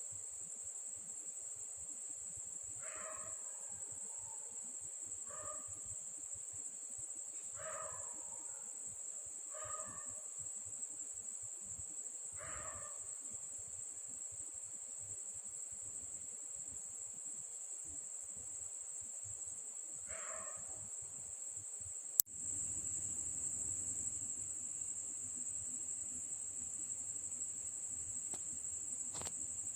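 Insects trilling in a steady, high-pitched, unbroken chorus. Six short calls from another animal cut in now and then over the first two-thirds. A sharp click comes about two-thirds of the way through, and after it a low hum joins the trilling.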